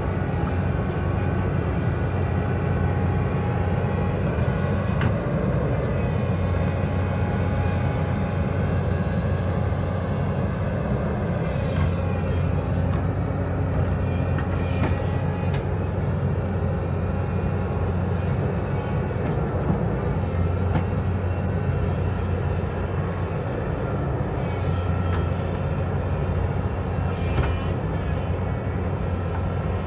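Hyundai 220 crawler excavator's diesel engine running steadily under working load as the boom and bucket dig into the hillside. A few faint knocks come through it now and then.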